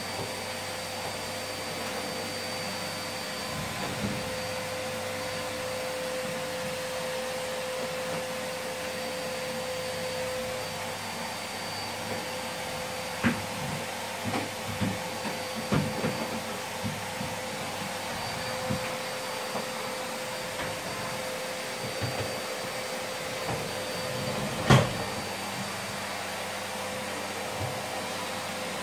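Canister vacuum cleaner running steadily with a steady hum as its floor nozzle is worked over the floor, with scattered light knocks and one sharp knock about three-quarters of the way through.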